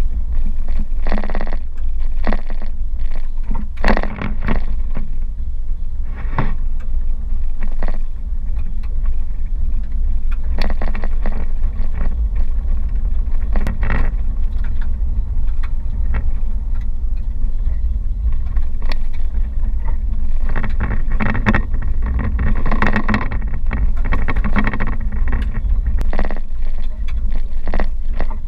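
Car driving on a rough gravel road, heard inside the cabin: a steady low rumble of tyres on the dirt, broken by frequent short knocks and rattles as it jolts over bumps.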